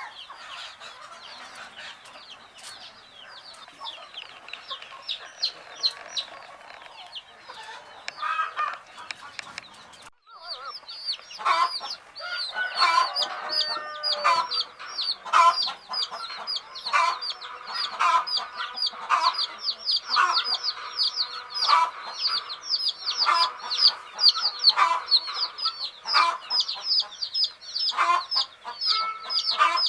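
A group of baby chicks chirping, many short falling peeps overlapping. The peeping is fainter for the first ten seconds, then, after a brief lull, louder and denser.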